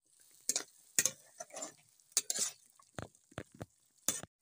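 Metal spatula stirring chicken curry in a metal kadai: a string of short scrapes and clinks against the pan, about two a second, over the sizzle of the cooking curry.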